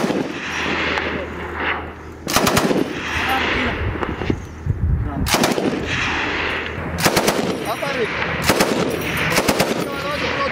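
Machine gun firing short bursts of automatic fire, about five bursts a second or two apart, each trailing off in a rolling echo.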